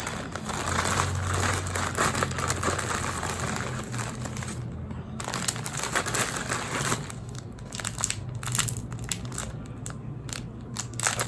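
Plastic packaging crinkling and rustling as a parcel is handled and opened. This thins out about seven seconds in to scattered small crackles and taps.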